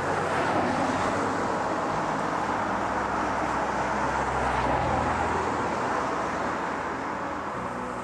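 A car driving past on the road: a steady rush of tyre and engine noise that swells to its loudest about five seconds in and eases off near the end.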